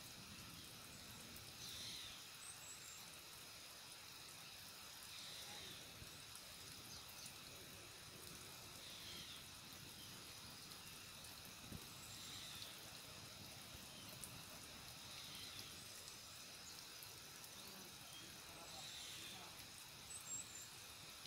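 Near silence: faint rural outdoor ambience, with a short high animal call repeating about every three to four seconds.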